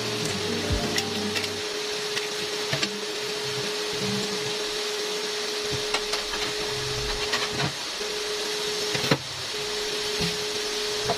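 Induction cooktop running under a boiling pot: a steady fan hiss with a constant hum that cuts out briefly twice, and scattered small pops of bubbling water in the pot.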